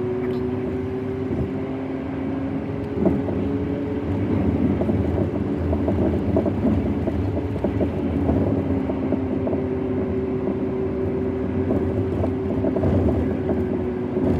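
Car cabin noise while driving on a highway: a steady engine and road drone with a low rumble and a held hum. There is a single knock about three seconds in.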